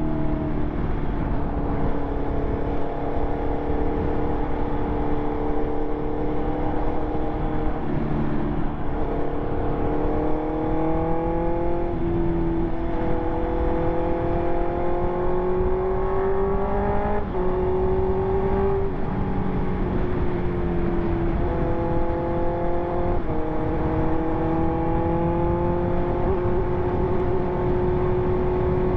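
2020 Honda CB650R's inline-four engine through an SC Project exhaust, under way at moderate revs. The engine note climbs gradually and drops sharply in pitch several times as gears change, with wind and road noise underneath.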